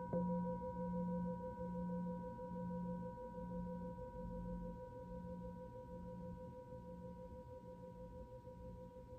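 Tibetan singing bowl struck once right at the start, then ringing on with several steady overtones above a low tone that pulses in a slow wobble, about three pulses every two seconds, slowly fading.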